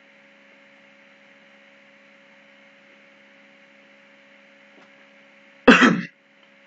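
Steady low electrical hum with faint hiss, broken about six seconds in by one short, loud throat clear.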